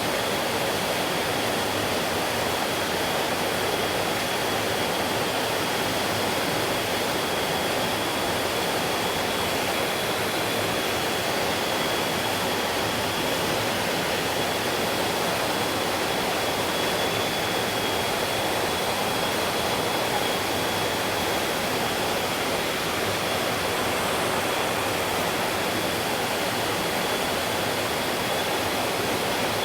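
Mountain stream flowing steadily over rocks, an even rushing of water. A thin, steady high tone sits faintly under it.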